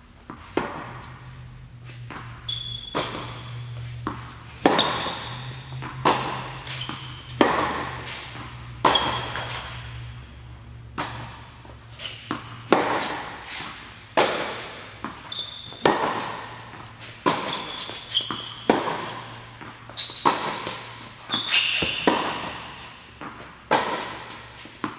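Tennis rally on an indoor hard court: a tennis ball struck by rackets and bouncing on the court, a sharp pop every second or so, echoing in the hall.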